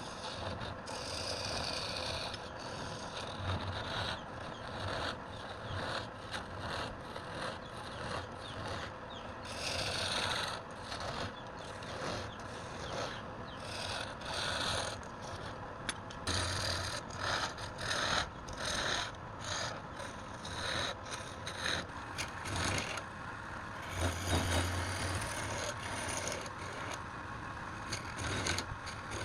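Wood lathe running with a low hum while a turning tool cuts and scrapes the spinning wood in many short, irregular strokes.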